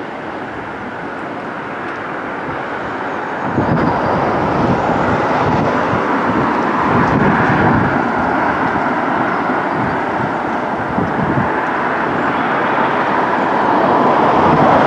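Steady distant traffic and rail noise that grows slowly louder, with irregular low rumbling surges from about three and a half seconds in.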